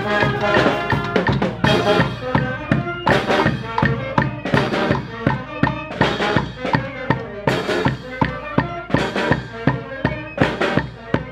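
Street brass band playing: sousaphone, tubas, trumpets and saxophone over snare and bass drums keeping a steady beat.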